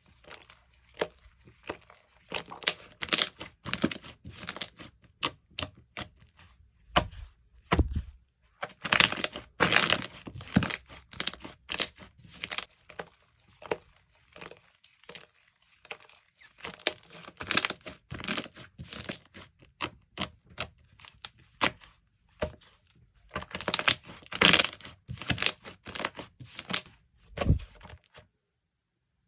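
Whipped slime being squished, pressed and stretched by hand, giving dense, irregular sticky crackles and pops that come in clusters. It stops about a second before the end.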